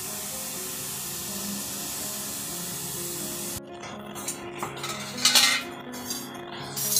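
A steady hiss that cuts off suddenly about three and a half seconds in, followed by knocks and scrapes of bamboo cooking tubes being turned and lifted from the embers of a hearth, with one louder clatter about five seconds in. Faint music plays underneath.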